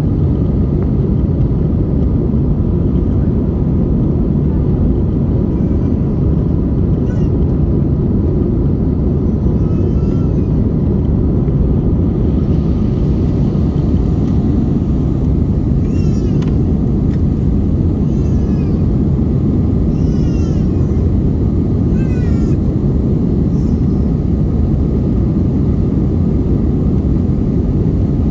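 Jet airliner cabin noise during climb-out: a steady, loud rush of engines and airflow heard through the fuselage. Faint high-pitched cries that fall in pitch come through it several times, most often in the second half.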